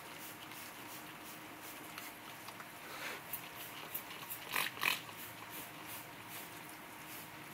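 Trigger spray bottle spritzing acid onto a galvanized steel sheet: short hissing squirts, about three a second. Two louder short sounds come about four and a half seconds in.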